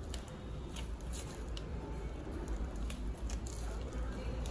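Scissors cutting through clear plastic packaging: irregular short snips and crinkling plastic over a steady low hum.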